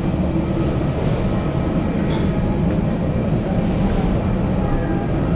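Steady low mechanical rumble and hum of machinery in an airport jet bridge, with a few faint steady tones above it.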